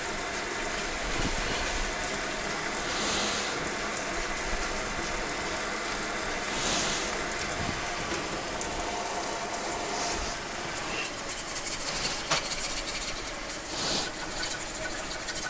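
Water from a kitchen faucet sprayer running steadily into a stainless-steel sink and over a two-stroke cylinder being scrubbed by hand, with a brighter hiss swelling every three to four seconds.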